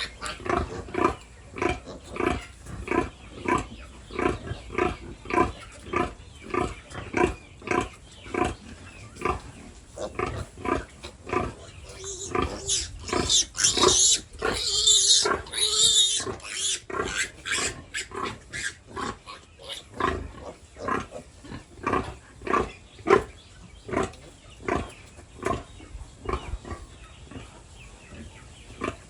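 Pigs grunting in a steady run of short grunts, two to three a second, with a stretch of loud, high squealing from about twelve to seventeen seconds in.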